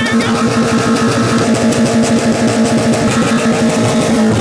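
Background music led by a strummed electric guitar.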